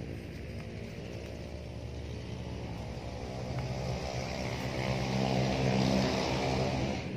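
A motor engine passing close by, growing steadily louder to a peak about six seconds in, then falling away suddenly.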